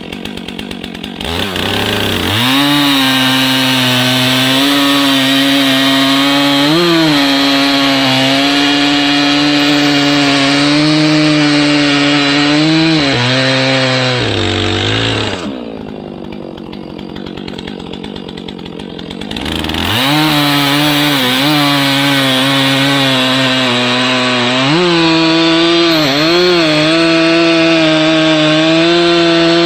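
Two-stroke gas chainsaw revving up a couple of seconds in and cutting through a log at full throttle, its note dipping now and then as the chain bogs in the wood. About halfway through the throttle is let off and it idles quietly for a few seconds, then revs up again and keeps cutting.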